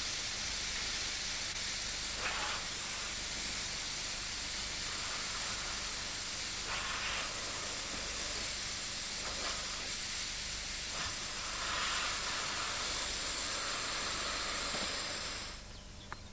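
Air hissing steadily out of a punctured vehicle tyre, cutting off suddenly near the end.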